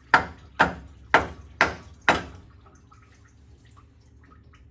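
Five sharp hammer blows, about two a second, that stop about two seconds in.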